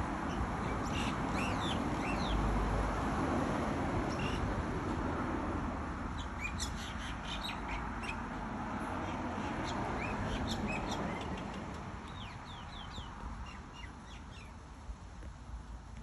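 Birds calling in many short, sharp, high chirps, busiest in the middle and thinning toward the end, over a low background rumble that fades away in the second half.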